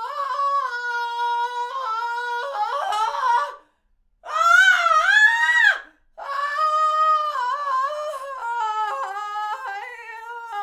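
A woman's drawn-out cries of pain. There are three long wavering screams with brief breaks between them, and the last one, beginning about six seconds in, is the longest.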